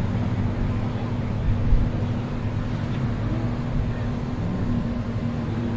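Supercar engines running at low speed as the cars move slowly along the track, a steady low drone, with one brief louder thump a little under two seconds in.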